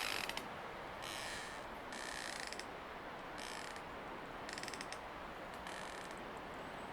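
Wind rushing steadily through trees while the wood of a swaying tree creaks in five short, ratcheting creaks, about one a second.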